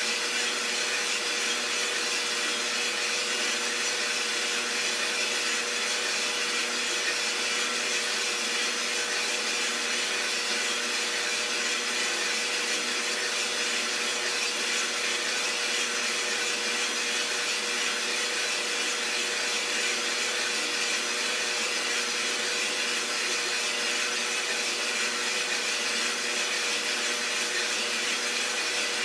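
Iroster 600 coffee roaster running steadily mid-roast: an even rushing noise with a constant hum underneath.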